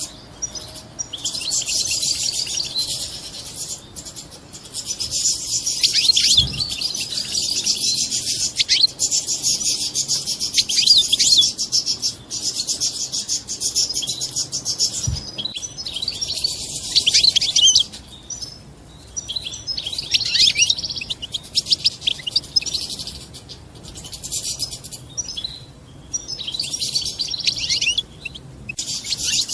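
European goldfinch twittering in fast, high, chattering bouts a few seconds long, separated by short pauses. This is the 'batbata' twitter used to stimulate goldfinches to breed.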